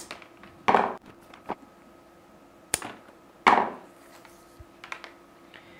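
Cat5 network cable being cut to length with wire cutters and handled: a few sharp snips and clicks, with two louder knocks, one under a second in and one past halfway.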